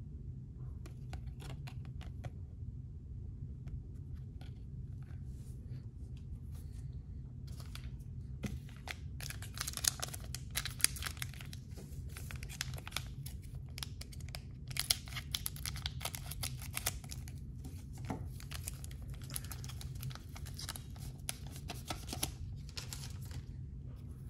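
Silver foil trading-card packs being torn open and crinkled by hand. Sparse crackles at first, then dense bursts of tearing and crinkling from about a third of the way in.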